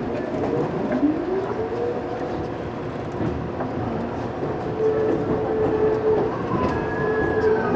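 Electric train's traction motors whining as it pulls away, heard from inside the driver's cab. The pitch rises over about a second, then holds as a steady tone with higher tones joining near the end, over the rumble of wheels on the rails.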